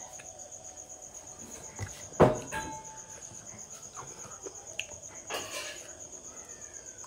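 An insect trilling steadily in a high, finely pulsed tone. A sharp knock about two seconds in, with a short ring after it, is the loudest sound.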